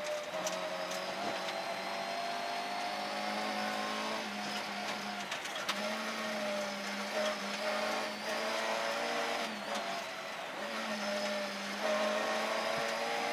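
Rally car's engine running hard at stage speed on a gravel forest road, heard from inside the cabin. Its note shifts and dips several times with throttle and gear changes, over a steady road noise with scattered sharp clicks of stones striking the car.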